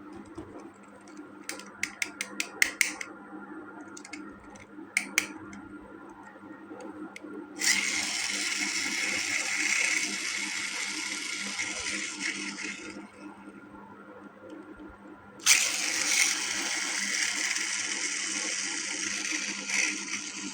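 Sharp plastic clicks, then a battery-powered plastic toy's geared mechanism running with a steady rasping whirr, switched on twice and stopping once in between.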